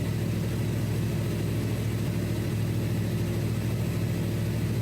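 1995 Chevy Tahoe's engine running steadily, heard from inside the closed cab, with the air conditioning blowing out of the dash vents.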